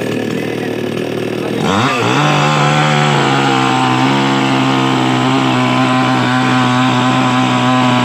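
iBELL chainsaw running at a low speed, then revving up about two seconds in and held at a steady high pitch as the chain cuts through a log.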